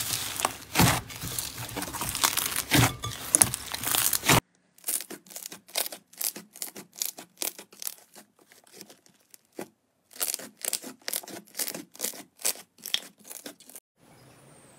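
Slime squeezed and stretched by hand: dense crackling and popping of trapped air bubbles, loud for the first four seconds. After a sudden break the crackles and pops come quieter and more spaced out, and stop near the end, leaving a faint hiss.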